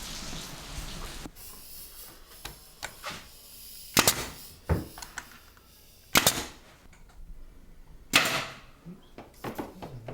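A nail gun firing three loud shots about two seconds apart, fastening mitered door casing trim to the wall, with a few lighter clicks and taps of handling between them.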